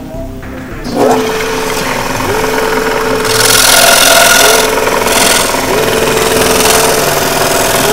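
Scroll saw running, its reciprocating blade cutting through a thin wooden board with a steady hum. The sound comes up sharply about a second in, and the cutting grows louder and brighter a few seconds later.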